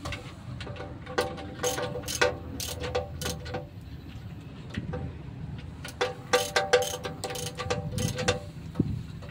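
Ratchet wrench clicking in two runs of quick strokes, one about a second in and another around six seconds in, each click with a short metallic ring, as a nut on top of the stationary engine is worked during its overhaul.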